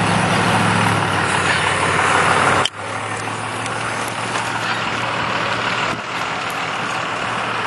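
Steady rushing noise of riding a bicycle along a street, wind on the microphone mixed with road traffic. A low steady engine hum in the first few seconds cuts off abruptly with a brief drop about three seconds in.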